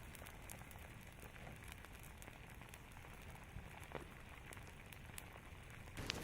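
Faint rain falling steadily, with scattered soft ticks and crackles and one sharper click near the end.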